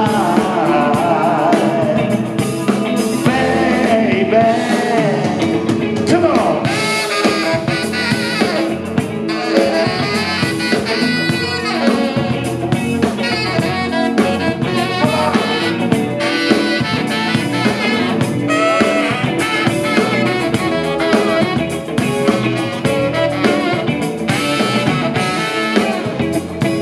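Live band playing an instrumental break: a saxophone solo over electric guitar, bass guitar and drums, loud and amplified.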